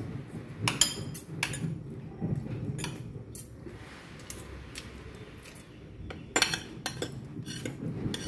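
Metal spoon and fork clinking and scraping against a bowl of rice and a plate while scooping food, in scattered sharp clicks that come thickest near the start and about six seconds in.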